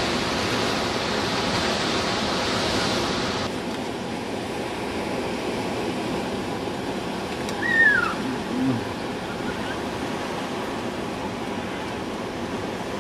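Ocean surf: sea water rushing over rocks at first, then, after a cut about three seconds in, a steadier wash of waves on a sandy beach. About eight seconds in, a short high call falls in pitch over the surf.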